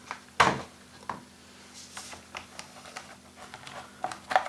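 A small plastic screwdriver toolset and its tools being handled: a string of sharp clicks and knocks, the loudest about half a second in and a close pair near the end.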